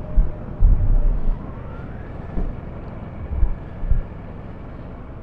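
Vehicle on the move: steady road and engine noise, with several short low thumps in the first four seconds.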